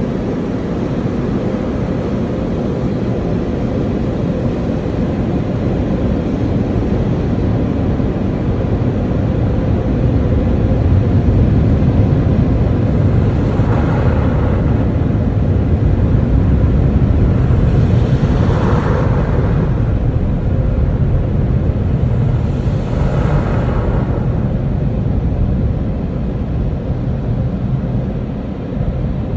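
Express car wash tunnel machinery heard from inside the car: a steady low rumble that grows louder partway through, with three brief hissing swells about four to five seconds apart, easing slightly near the end.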